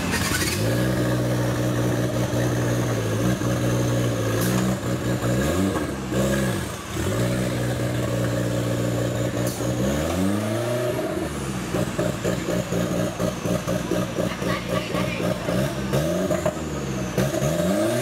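Off-road 4x4's engine running at high revs in deep mud and water, the revs dropping and climbing again several times.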